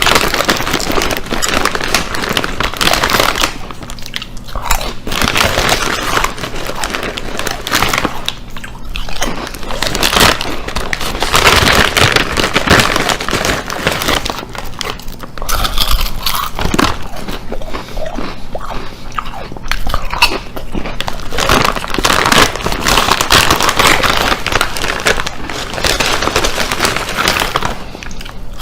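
A person biting and chewing crunchy chips: a loud, dense crackling crunch, with short lulls every few seconds.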